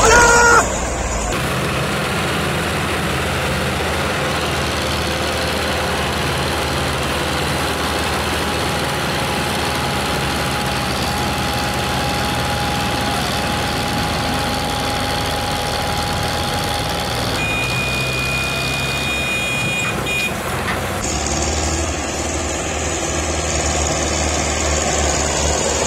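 Tractor diesel engines, one of them a Belarus MTZ-50, running steadily under heavy load while hauling a loaded sugarcane trolley up a climb. A steady high tone joins in past the middle for a few seconds, and the sound changes abruptly about a second in and again near the end.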